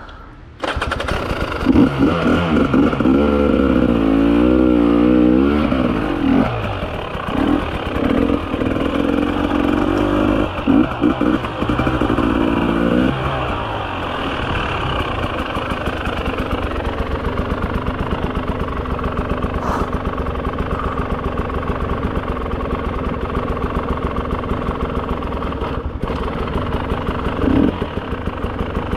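300 cc two-stroke enduro motorcycle engine revving up and down under throttle for the first dozen seconds or so. It then settles to a steady, lower, evenly pulsing run near idle.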